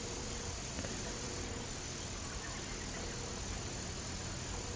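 Quiet outdoor background noise: a steady hiss and low rumble with a thin, steady high-pitched whine, and faint short tones now and then.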